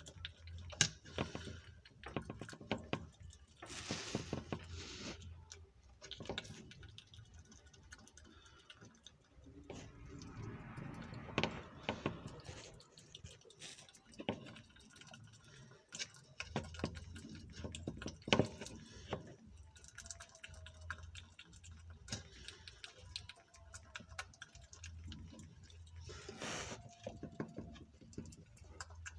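Southern three-banded armadillo eating soft wet food from a plastic tray: an irregular run of small wet clicks and smacks from its mouth as it laps and chews.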